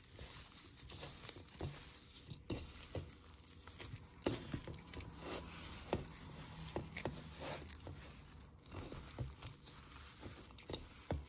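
Disposable plastic glove crinkling and crumbly ground-peanut and raisin mixture rustling as a hand squeezes and kneads it in a bowl, in irregular crackles and rustles.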